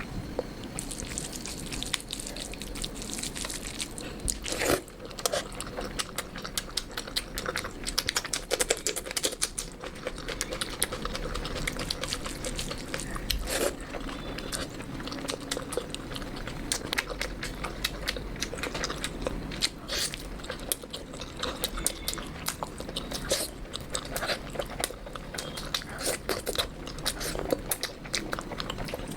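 Close-miked eating: a person chewing and biting food, with many wet clicks and smacks of the mouth.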